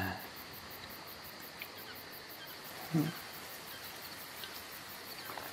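Quiet night-time insect ambience with a steady, even chirping of crickets. One short, low vocal sound about three seconds in.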